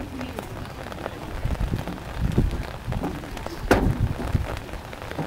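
Uneven rumbling, crackling outdoor noise with one sharp crack about three and a half seconds in.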